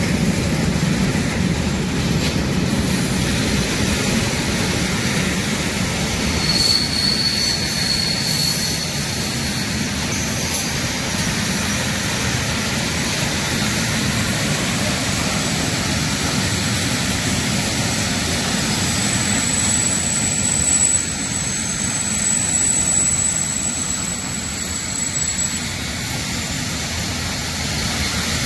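Freight train of loaded open-top wagons rolling past close by: a steady, loud rumble and rattle of steel wheels on rails. A thin high squeal comes in briefly about seven seconds in, and a longer high squeal runs from about twenty to twenty-five seconds.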